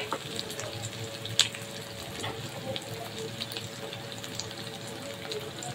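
Boiled potato pieces and cumin seeds sizzling gently in hot oil in a kadai, with small crackles and one sharper tick about a second and a half in.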